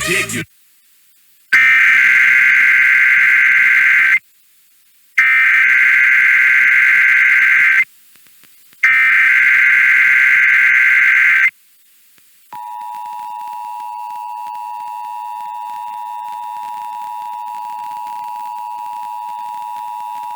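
Emergency Alert System SAME header: three short bursts of data tones about a second apart, followed by the steady two-tone attention signal held for about eight seconds, opening a Required Monthly Test.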